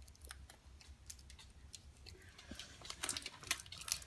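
Fingers picking and peeling tape off a small plastic container, making light clicks and crinkles of tape and plastic. The clicks grow busier about two seconds in.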